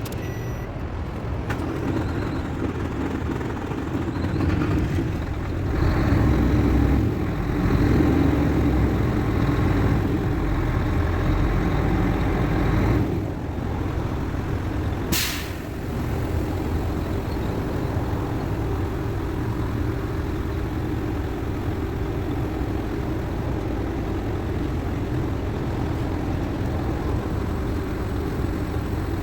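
Mercedes-Benz Actros 1848 truck's diesel engine running after being started. It revs up for several seconds, then settles back to a steady idle. A short sharp air hiss, like an air brake releasing, comes about halfway through.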